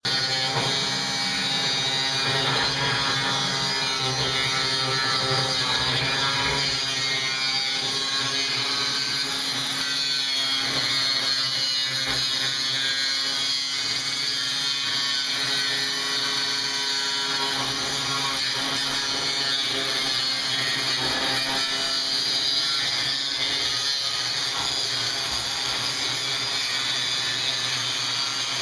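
Angle grinder with a cut-off wheel running steadily and slicing through the van's sheet-metal body panel, a continuous high-pitched cutting noise.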